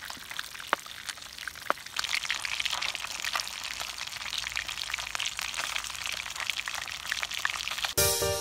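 Whole tilapia frying in hot oil in a pan: a steady crackling sizzle with fine spitting ticks. It is preceded by a couple of knife knocks on a wooden chopping board, and music starts abruptly near the end.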